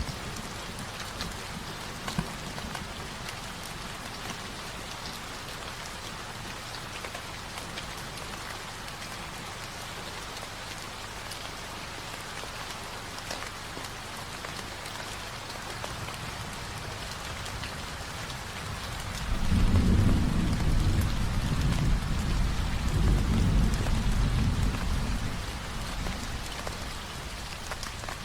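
Recorded steady rainfall, with a low roll of thunder about two-thirds of the way through that swells for several seconds and then dies away.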